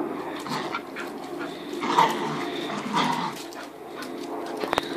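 Two Staffordshire bull terriers, an adult and a puppy, playing rough: low growling with two short barks about a second apart, then a few sharp clicks near the end.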